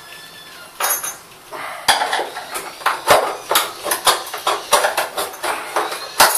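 A metal screwdriver prying and scraping at the plastic clips and housing of a car headlight. It makes a run of irregular sharp clicks and scrapes, with the loudest click near the end.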